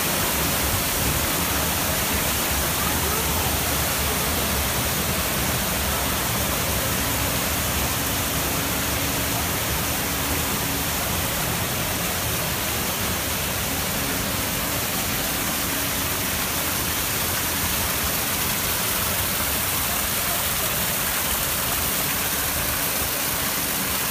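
Water of the Trevi Fountain pouring over its rock cascades into the basin pool: a steady, even rush of falling water.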